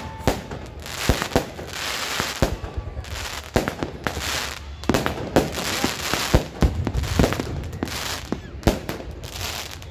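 Aerial fireworks going off: irregular sharp bangs from bursting shells, several close together, with stretches of crackling between them.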